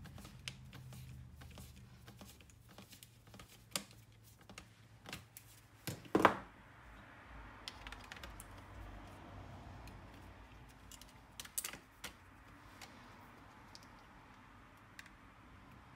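Light plastic clicks and taps of a laptop cooling fan being seated in the laptop's open chassis and its cable plugged in, with a louder knock about six seconds in.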